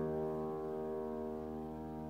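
A grand piano chord rings on, held and slowly fading, with its low notes strongest.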